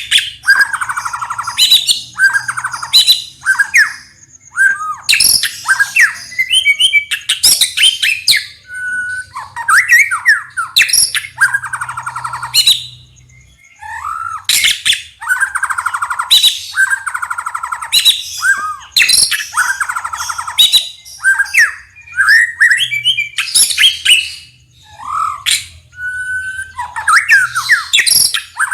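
White-rumped shama singing a rich, varied song: loud clear whistles and rising and falling notes alternating with fast rattling chatter phrases, repeated every second or two.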